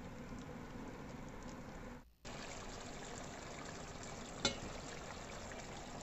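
Mutton curry with tomatoes and yogurt masala simmering in a pot, a steady bubbling sizzle of oily gravy. It breaks off briefly about two seconds in, and a single click comes a little past four seconds.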